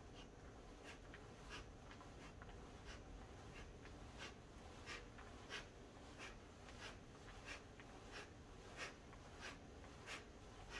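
Faint, short exhalations through the nose, about three every two seconds, one with each turn of a quick seated side-to-side twist.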